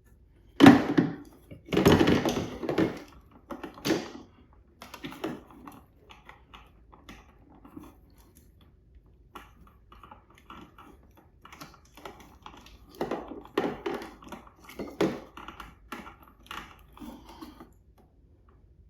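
Irregular plastic clicks, knocks and rattles of a wiring connector being worked loose by hand from the rear mounting plate of a Harley-Davidson Street Glide headlamp. There is a busy spell in the first few seconds and another near the end.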